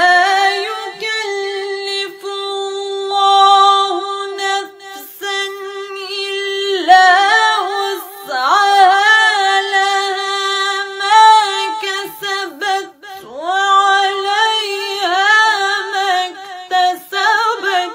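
Unaccompanied woman's voice chanting Quranic verses in a melodic recitation style, drawing out long held notes with ornamental turns and a few brief breaks for breath.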